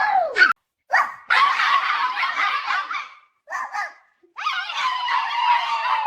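A pet dog vocalising: a few short barks, then longer drawn-out cries.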